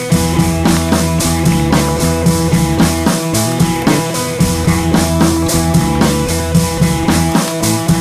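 Rock background music with a steady drum-kit beat, bass and guitar.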